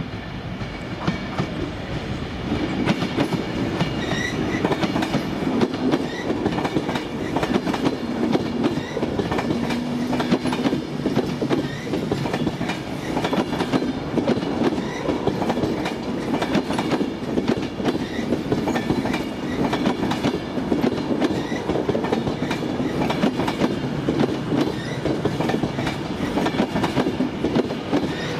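A train running past close by, its wheels clacking over the track joints. It builds up over the first few seconds and then stays loud.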